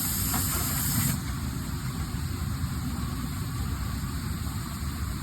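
Pneumatic hiss of a tire changer's air-operated clamps, cutting off sharply about a second in, over a steady low rumble.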